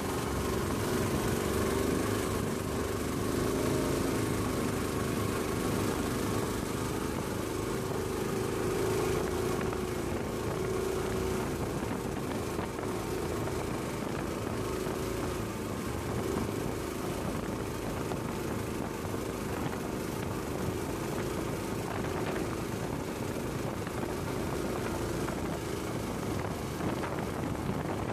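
Small passenger motorboat's engine running steadily at cruising speed, with the rush of water and wind along the hull.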